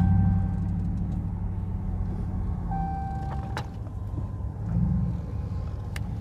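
Off-road 4x4 vehicle engine running with a steady low rumble, swelling near the start and again about five seconds in. Two short high beeps and a couple of sharp clicks sound over it.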